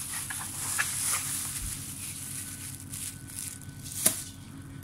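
Clear plastic bags crinkling and rustling as bagged fidget toys are handled, with small clicks, dying down after about three and a half seconds; one sharp tap about four seconds in.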